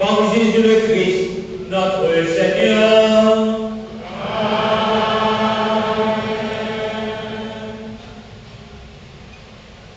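A man's voice chanting a liturgical prayer in a sung recitation, moving through short phrases and then settling on one long held note that fades out near the end.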